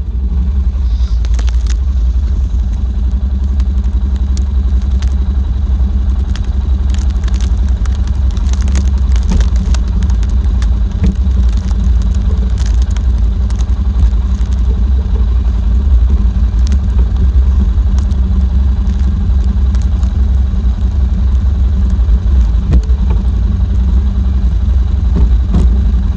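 Four-wheeler (ATV) engine running steadily with a deep, continuous drone, with scattered rattles and clicks over it.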